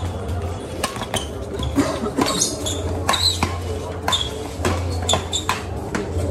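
Badminton doubles rally: rackets hitting the shuttlecock with sharp cracks, several in quick succession, and players' shoes squeaking briefly on the coated concrete court, over a steady low hum.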